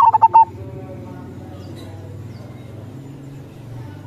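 A zebra dove sings one short phrase right at the start, a quick run of coo notes lasting about half a second, over a steady low rumble.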